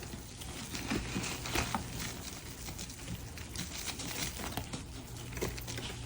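A soapy, foam-soaked sponge being squeezed by hand: irregular wet squelches and crackling foam.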